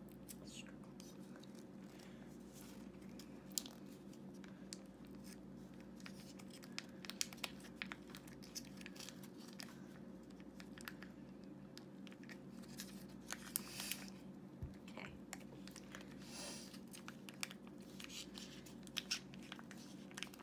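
Small cardboard milk-carton blind box being torn and peeled open by hand: scattered faint tearing and crinkling of the card, over a steady low hum.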